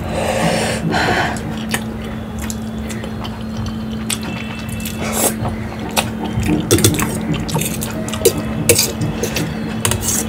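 Close-up wet eating sounds of saucy Maggi instant noodles: slurping and chewing, with light clicks of a fork against a steel plate. The longest wet slurp comes right at the start, another about five seconds in.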